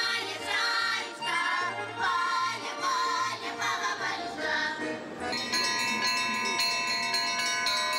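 Music with singing over a pulsing bass line, which gives way suddenly about five seconds in to bells ringing: many struck bells sounding together, their tones hanging and overlapping.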